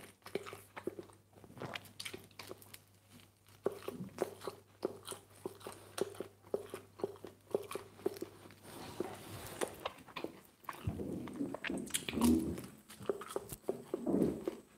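A person chewing and biting pizza crust: a steady run of short crunchy clicks, a few each second, with a couple of louder chewing sounds near the end.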